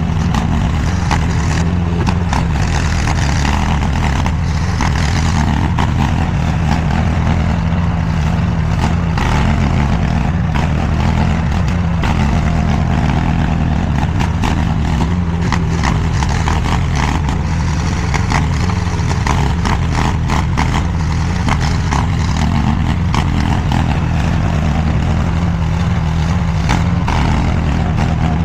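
DIGGIT SCL850 stand-behind mini skid steer's engine running steadily under load, with scattered clicks over it.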